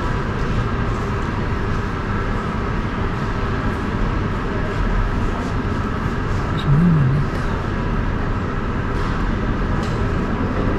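Steady low background rumble of a large hall, with a brief low wavering hum about seven seconds in.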